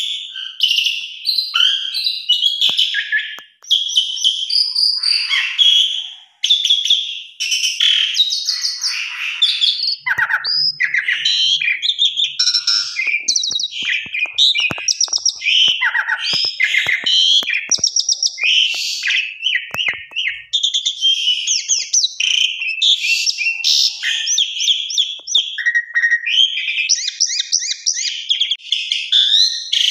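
Javan pied starling (jalak suren) singing vigorously and without pause: a long, varied song of whistles, chattering and rapid trills, packed with short notes in quick succession.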